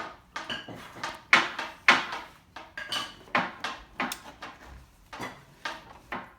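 Irregular knocks and clatter of hard objects, about two a second, like wood pieces and tools being set down and shifted on a workbench. No saw motor is running.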